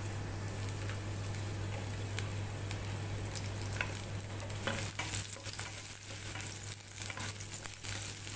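Sliced garlic sizzling in hot olive oil in a nonstick frying pan, with small pops and the clicks of being stirred now and then.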